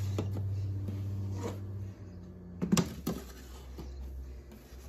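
Perforated metal air-fryer trays knocking and scraping as they are slid onto the oven racks, with a short cluster of clanks about three seconds in. A steady low hum runs underneath and stops about two seconds in.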